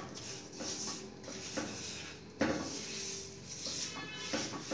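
A spatula scraping and stirring crumbly ground moong dal around a nonstick wok in quick repeated strokes, with one louder stroke about halfway through, as the dal is roasted in ghee.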